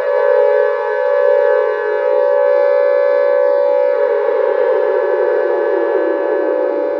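A loud, siren-like sound effect: a steady, buzzy tone full of overtones, with a second, lower pitch sliding slowly downward.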